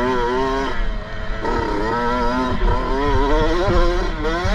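Kawasaki KX65's single-cylinder two-stroke engine revving hard under load, easing off briefly a little under a second in and then climbing in pitch again as the throttle is opened.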